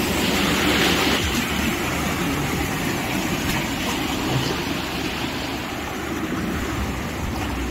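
Steady rushing and splashing of floodwater as an SUV drives through it, with its engine running underneath.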